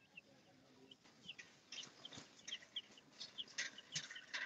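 Baby chicks peeping: many short, high chirps, few at first, then coming quickly one after another through the second half.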